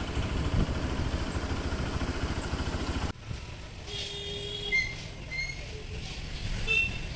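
A motor vehicle engine rumbles with a fast low pulsing for about three seconds, then cuts off suddenly. A quieter background follows, with a few short high-pitched chirps.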